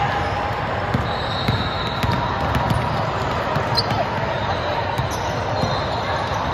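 A ball bouncing on a hard indoor court, a handful of irregularly spaced thuds, over the steady background noise of a gym.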